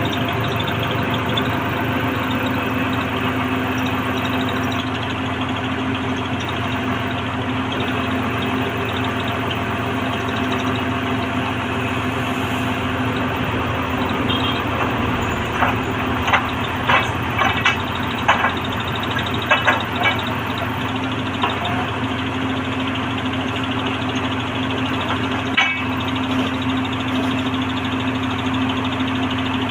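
Horizontal directional drilling rig's diesel engine running steadily under load. A run of sharp knocks comes about halfway through, and one more knock near the end.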